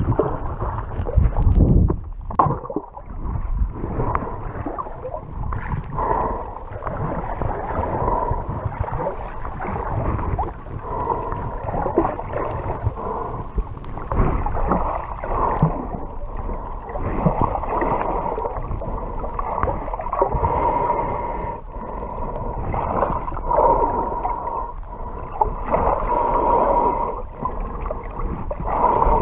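Muffled water sloshing and gurgling around an action camera held underwater while snorkelling, in uneven surges with small knocks.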